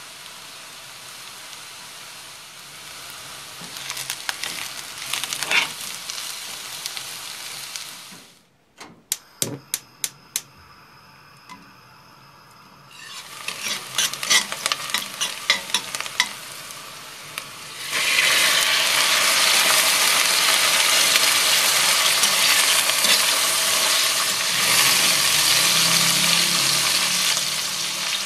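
A spoon stirring food and clicking against the side of a metal pot, then chopped onion sizzling in oil in a stainless steel pressure cooker. About two-thirds of the way in, the frying grows loud and steady as lamb pieces fry with the onion.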